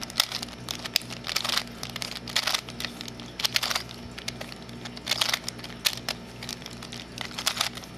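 Plastic layers of a Super Square-1 puzzle being twisted by hand in quick succession: an irregular run of clicks and clacks as a sequence of R and U turns is carried out.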